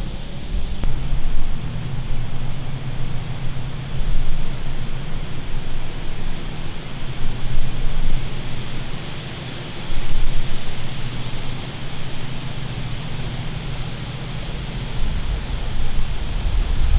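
Wind buffeting the camera microphone: a low, uneven rumble that swells and fades in gusts over a steady outdoor hiss.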